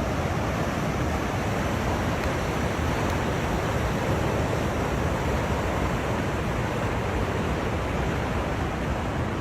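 Steady, even rushing of heavy water, as of floodwater or torrential rain, with no breaks or changes.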